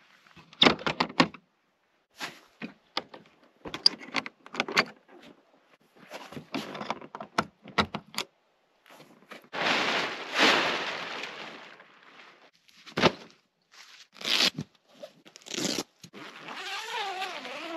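Camp-setup handling sounds: metal clicks as a latch on a small trailer's fiberglass lid is worked, and scraping as the lid is lifted. After that comes rustling and knocking as a tent bag is handled on a plastic tarp, with a brief wavering tone near the end.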